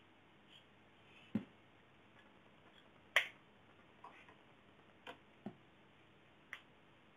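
Scattered light clicks and knocks of small objects handled on a kitchen countertop. There is a dull knock about a second in, then a sharp click, the loudest, about three seconds in as a small plastic case is set down on the worktop. A few fainter clicks follow.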